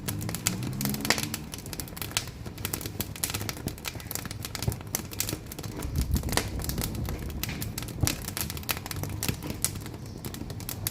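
Wood fire crackling in the firebox of a wood-burning cookstove: irregular sharp pops and snaps over a low rumble.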